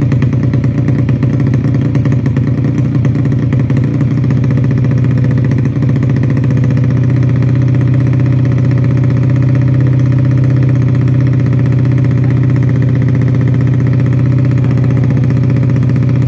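Yamaha Jupiter Z underbone's four-stroke single-cylinder engine, tuned up to 130cc for road racing, running loud and steady at an even speed through an aftermarket slip-on exhaust.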